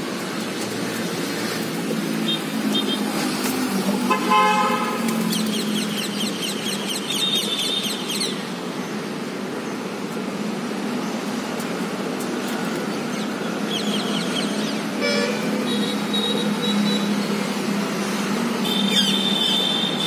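City road traffic with a steady low hum, and vehicle horns tooting a few times, with one clear blast about four seconds in and another around fifteen seconds. Short, high, rapid trills come in between.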